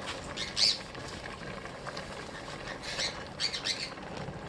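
A bird squawking a few times in short, high-pitched calls, once about a second in and twice more around three seconds in.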